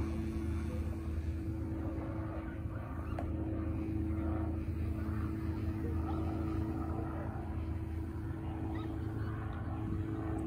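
A motor running steadily, a constant low hum that holds one pitch throughout.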